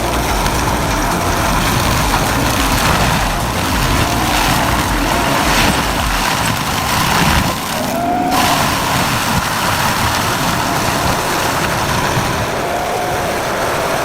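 Heavy forestry machine running loudly and steadily, a dense engine and working noise with no pauses. The sound briefly drops and changes character just before halfway.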